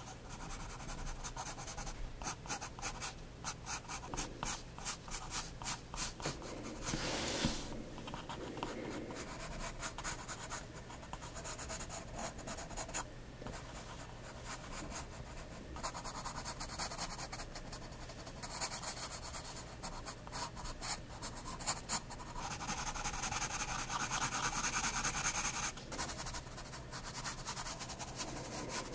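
9B graphite pencil scratching across sketchbook paper in short, quick strokes, with one brief louder scrape about seven seconds in. Near the end the strokes turn denser and louder as an area is shaded in.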